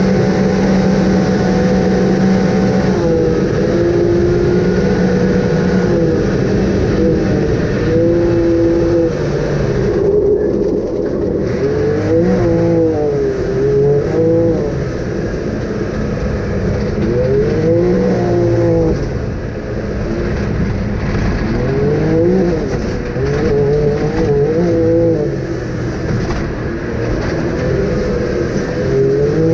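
Off-road vehicle engine working hard under load. It holds a fairly steady pitch at first, then revs up and back down in repeated swells every few seconds.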